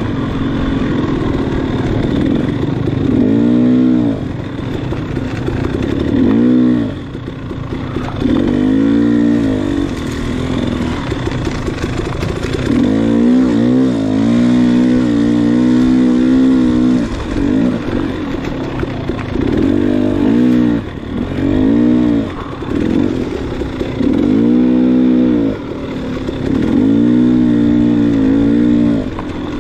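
Off-road enduro motorcycle engine revving up and dropping back again and again as the throttle is opened and closed, rising in pitch about ten times with short pauses between.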